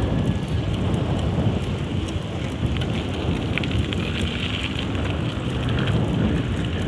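Wind rushing over the microphone and bicycle tyres rolling along a sandy road, a steady noise dotted with many small crackles of grit.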